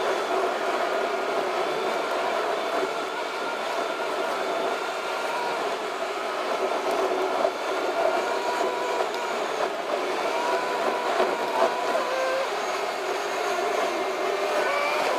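Road noise inside a Ford car cabin while it drives at speed: a steady rush of engine, tyre and wind noise with a faint wavering whine.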